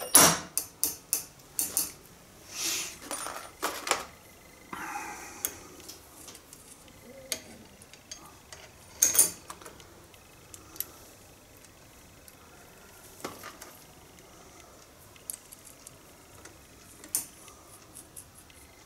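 Metal parts of a hedge trimmer's blade and gear head being handled and fitted by hand: a quick run of loud clanks and clinks at the start, a scrape about five seconds in, another clank about nine seconds in, then scattered small metallic clicks.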